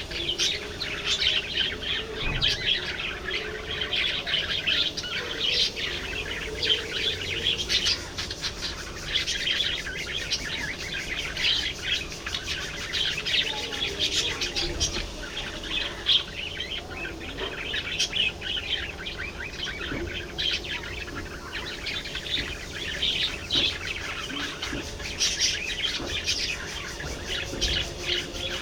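A flock of budgerigars chirping and chattering continuously, many short overlapping calls at once.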